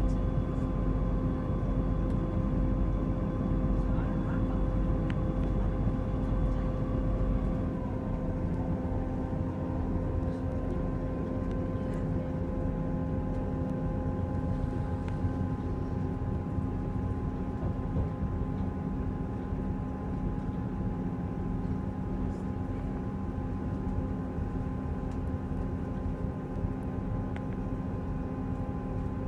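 Steady rumble and hum of a diesel train in motion, heard on board, with several steady droning tones over the running noise; some of the higher tones fade out about seven or eight seconds in.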